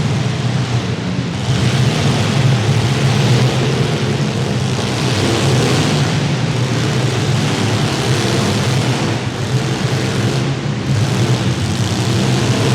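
Several compact demolition derby cars' engines running hard together, a steady dense drone with some rises and dips in level.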